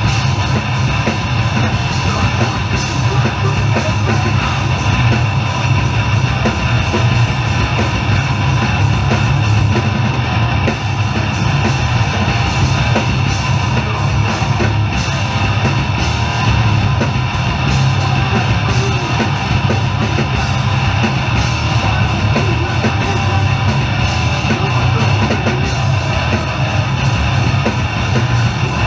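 A heavy hardcore band playing live and loud: distorted bass and guitar over a pounding drum kit, continuous with no breaks.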